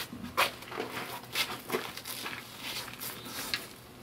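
Irregular short scuffs and clicks, about one or two a second: footsteps on gravel and hands working the engine block as it is set in the car.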